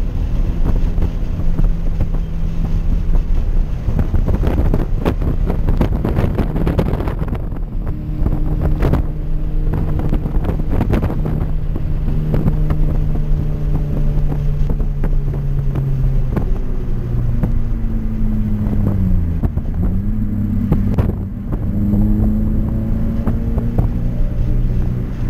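Toyota 86's flat-four engine pulling steadily under load on track, heard from inside the cabin over wind and road noise. About three-quarters of the way in the engine note dips and then climbs back up.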